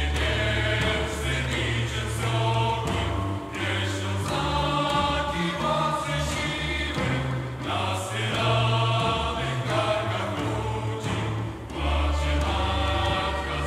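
Choir and orchestra performing a sacred oratorio: sung phrases of held chords over sustained low bass notes, with short breaks between phrases every few seconds.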